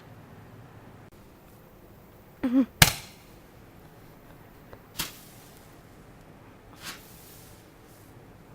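Fireworks going off: three sharp bangs, the loudest about three seconds in, another about two seconds later and a fainter one near the end.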